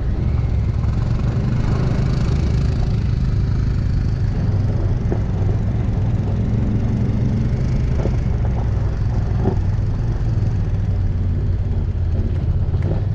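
Off-road vehicle's engine running steadily at low speed, a deep, even hum with a few light knocks from the ride over icy, rutted snow.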